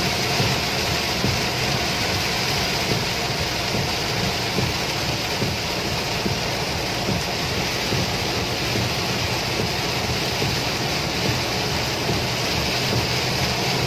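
Very heavy rain beating on a moving car's roof and windshield, heard from inside the cabin as a steady, dense hiss over the car's running noise.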